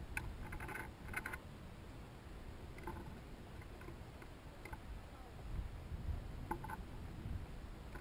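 Dark-eyed junco's bill pecking seed on a wooden feeder rail: a quick run of light taps in the first second or so, then single taps every second or two, over a low rumble.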